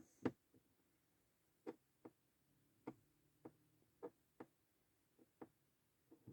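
Faint, sharp clicks at uneven intervals, about a dozen, with quiet between them.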